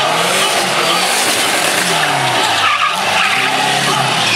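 Chevrolet Chevette drift car's engine revving, its pitch rising and falling again and again, while the rear tyres spin and squeal through a smoky drift.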